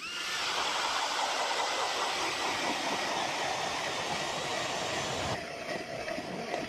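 Hand-cranked 150 mm ice auger grinding steadily down through thick lake ice, its sharp blades scraping and shaving. The sound thins a little over a second before the end.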